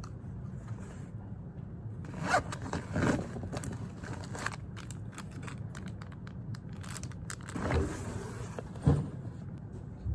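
Scraping and rustling handling noises as a small sanitizer spray bottle and a plastic packet of wet wipes are handled, over a steady low room hum. A sharp knock comes near the end.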